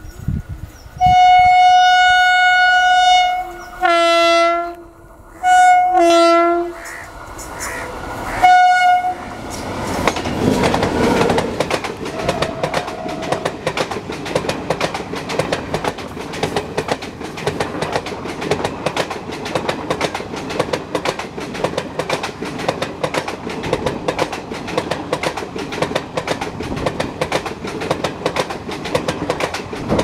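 Electric locomotive horn sounding one long blast, then shorter blasts, some of them two-tone, as the passenger train approaches. A sharp bang comes about eight and a half seconds in. From there on the coaches pass close by, with a steady rhythmic clatter of wheels over the rails.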